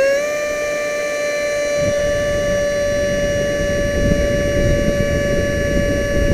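64 mm brushless electric ducted fan of an RC jet, reaching full speed at the start and then holding a steady high-pitched whine with many overtones. A rushing noise runs underneath and grows heavier about two seconds in.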